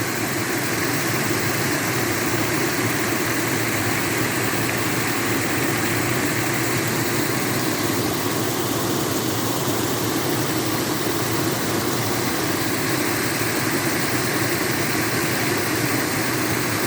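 Steady rushing of water falling over a rock, an even, unbroken noise.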